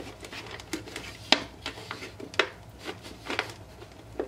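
Thin plastic bottle crackling and clicking as it is squeezed and a cardboard wing piece is forced through slits cut in its sides: a few scattered sharp crackles at irregular intervals.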